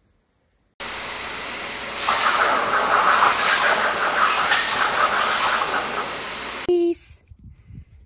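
Dog grooming dryer blowing: a steady rushing hiss with a thin high whine, coming in about a second in. It grows louder and flutters from about two seconds in, then cuts off suddenly near the end.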